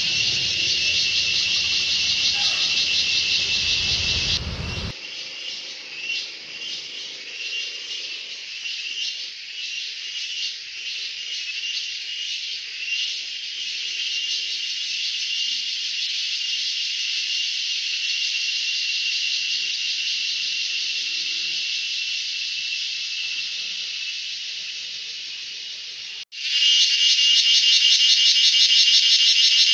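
Continuous shrill, pulsing chorus of forest insects, with a steady high ringing note. A low rumble underlies the first five seconds and stops, and about 26 seconds in the sound cuts abruptly to a louder stretch of the same chorus.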